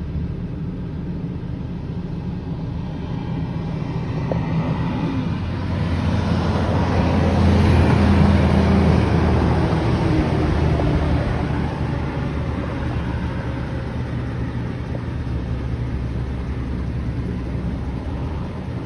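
Heavy vehicles, among them an armored SWAT truck, driving past on a highway: steady engine and tyre noise that swells to its loudest about eight seconds in and then slowly fades.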